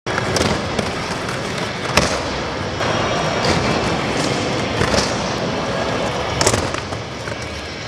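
Skateboard wheels rolling on a concrete floor, with sharp clacks of the board popping and landing, the loudest about two, five and six and a half seconds in.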